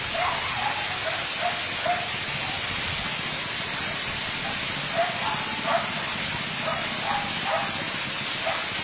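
A dog yelping in short, high barks again and again at uneven intervals, over a steady hiss.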